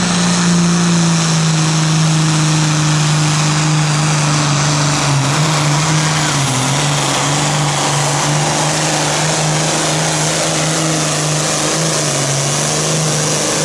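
Classic super stock pulling tractor's turbocharged diesel engine running hard at high revs under full load as it drags the sled. It is a loud, steady note that sags slightly a few times and recovers.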